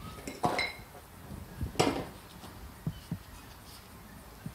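Metal parts of a partly dismantled SU carburettor knocking and clinking as they are handled and set down on the workbench: a short ringing clink about half a second in, a louder knock near two seconds, then a couple of light taps.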